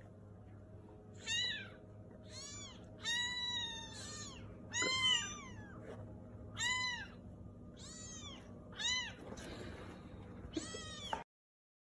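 Kittens mewing over and over: about nine short, high-pitched meows that rise and fall in pitch, one drawn out longer near the middle. The sound cuts off suddenly near the end.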